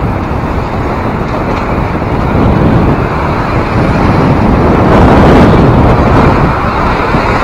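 Lake waves surging against and under shore ice in a steady noisy rush, with heavy wind rumble on the microphone. The sound swells from about three seconds in as a wave forces spray up through an ice volcano, peaking around five seconds.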